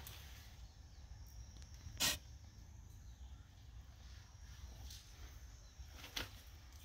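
Faint outdoor background with a low rumble, a single sharp knock about two seconds in, and two fainter clicks later on.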